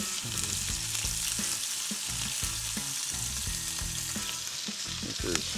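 Magpie goose breast fillets sizzling steadily as they fry in canola oil in a frying pan, with one sharp tick near the end.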